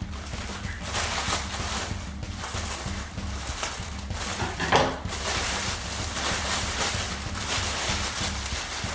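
Rustling and crinkling of plant packaging as it is handled and unwrapped, in irregular bursts with one louder crackle about halfway through, over a steady low electrical hum.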